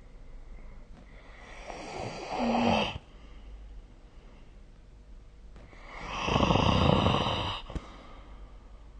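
A person snoring in sleep: two long snoring breaths about four seconds apart, the first starting about a second in and the second in the latter half.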